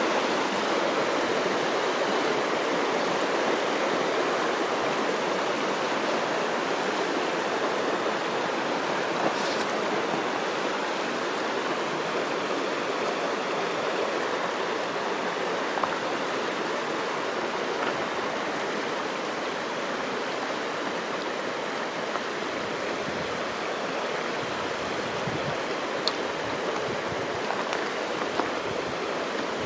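River water rushing and flowing in a steady, even stream, easing slightly quieter over the stretch, with a few faint ticks.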